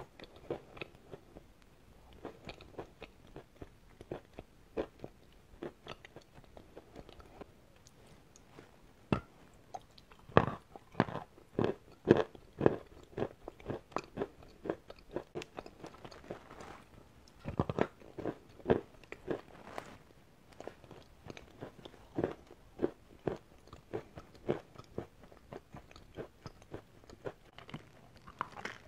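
Eating chalk crunched and chewed close to the microphone: a dense, irregular run of crisp bites and crunches, loudest in clusters about a third of the way in and again a little past the middle.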